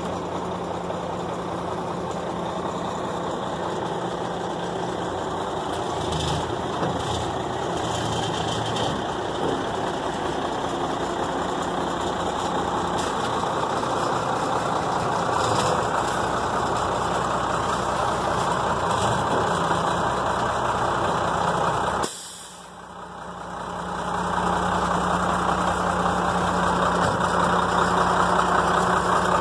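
Ford L8000 truck engine idling steadily. About two-thirds of the way through, the sound drops away suddenly and then fades back up over a couple of seconds.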